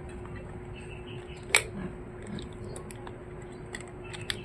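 Small handling ticks and one sharp click about a second and a half in as a laptop RAM module is worked out of its slot, over a faint steady hum.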